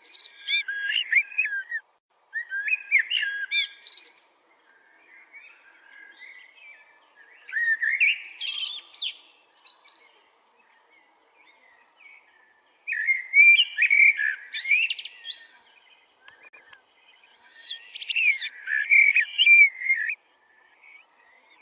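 Bird song: five loud, complex phrases of about two seconds each, spaced a few seconds apart, with quieter calls in between.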